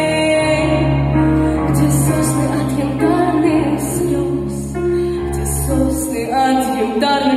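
Music: a song with singing over held bass and accompaniment notes that change about once a second.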